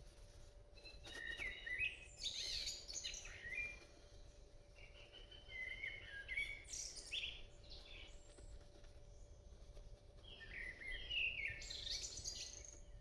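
A cloth wiping Windex off acetate screwdriver handles, in three bouts of rubbing with high, gliding squeaks as it drags on the plastic.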